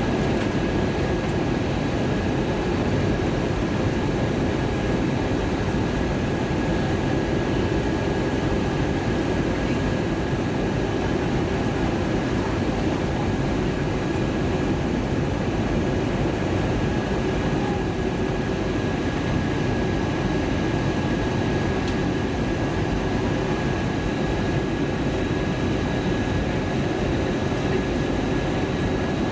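Steady cabin noise inside an Airbus A320-232 in flight: the drone of its IAE V2500 turbofan engines and the rush of air over the fuselage, with a faint high steady whine over it.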